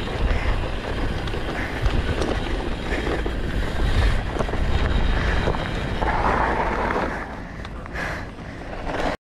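Wind buffeting the camera microphone on a rolling mountain bike, with tyres crunching over dirt and gravel. The noise drops away after about seven seconds and cuts off suddenly near the end.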